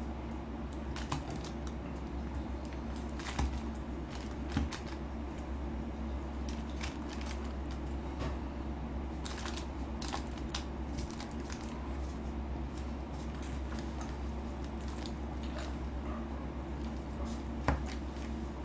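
Chopsticks clicking and scraping against a plate and a cardboard chicken box as fried chicken pieces are picked apart, with a few sharper knocks about a second in, around three to four and a half seconds in, and near the end. A steady low hum sits underneath.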